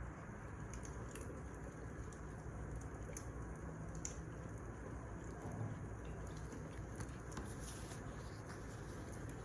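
Firewood burning in a fireplace: a steady low rush of flames with scattered sharp crackles and pops, one of the sharpest about four seconds in.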